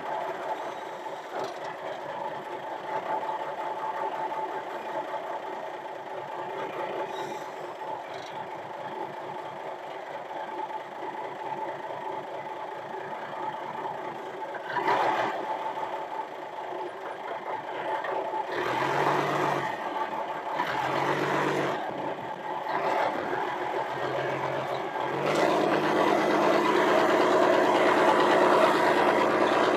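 Forklift engine running steadily, then growing louder and fuller near the end as the hydraulic control levers are worked.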